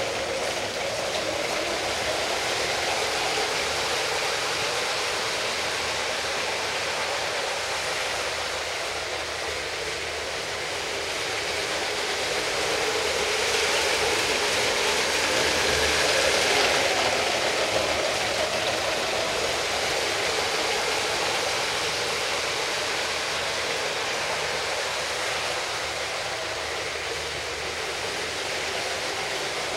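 LEGO model train running on plastic track: a steady whirring, rolling hum from its motor and wheels that swells somewhat in the middle.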